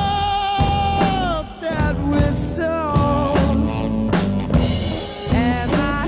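Background song: a singing voice holding long, wavering notes over bass and drums.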